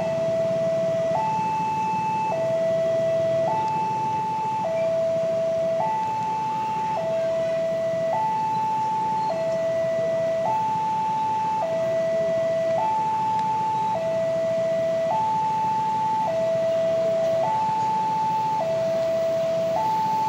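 Railway level-crossing warning alarm: an electronic two-tone signal alternating steadily between a lower and a higher tone, each held about a second. It is warning of an approaching train.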